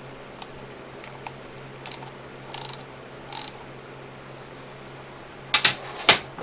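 Ratchet wrench snugging up the bar nuts on a chainsaw's side cover in a few short strokes, then two loud, sharp clacks near the end.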